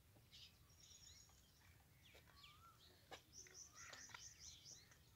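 Faint chirping and short calls of several birds, with a quick run of high repeated notes a little past the middle. A couple of faint clicks come just past the middle.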